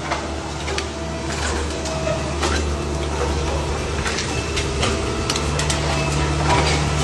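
Road roller's diesel engine running steadily as its steel drum rolls over and flattens a row of motorcycle exhausts, with scattered sharp clicks and crunches of metal being crushed.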